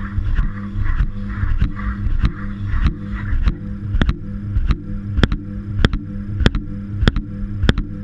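Washing machine drum turning, heard from inside the drum: a steady low rumble with a sharp click about every 0.6 s, growing louder after the first few seconds. A rushing noise in the first half fades out about three and a half seconds in.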